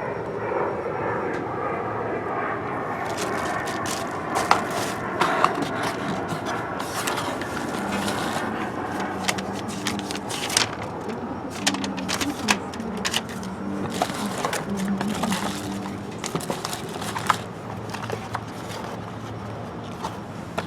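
Fuel pump parts and their packaging being handled: irregular clicks, scraping and crackling. A droning hum fades out over the first few seconds.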